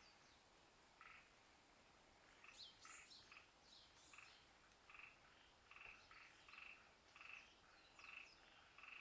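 Faint jungle wildlife calling after rain. A short, pulsed croaking call repeats roughly once a second, and a few high, falling bird whistles come in around the middle.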